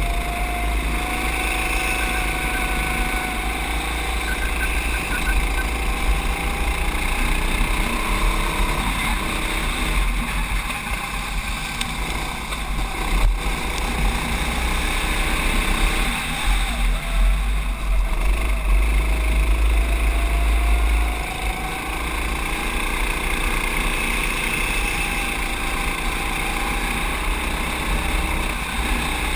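Racing kart engine heard onboard while lapping, its pitch rising and falling gently through the corners, with heavy wind rumble on the microphone.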